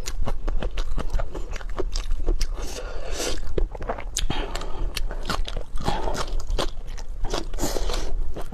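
Close-miked eating: food being bitten and chewed with crunching, a dense irregular run of crisp clicks and wet smacks.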